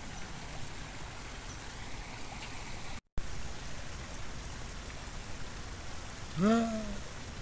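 Steady rush of flowing river water, broken by a brief dropout at an edit about three seconds in. Near the end a man gives one short wordless vocal exclamation that rises and then holds.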